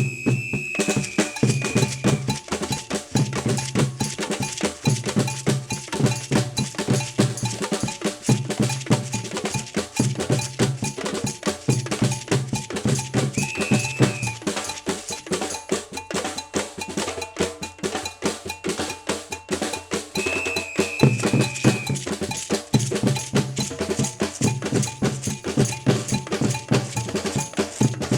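Brazilian batucada-style percussion music: drums playing a steady, dense samba rhythm with a prominent cowbell pattern. A low pitched bass part drops out for several seconds in the middle, and a high held note sounds three times.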